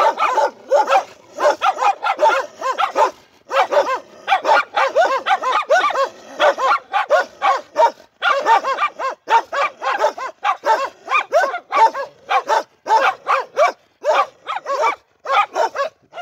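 Several watchdogs barking over and over, two to three barks a second, with only brief pauses.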